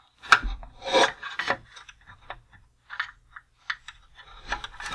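Metal pliers gripping and squeezing the plastic peg joint of a gun turret mount in a 1988 G.I. Joe Cobra BUGG toy's hull: a sharp click about a third of a second in, scraping in the first second and a half, then scattered light ticks and rubbing of tool on plastic.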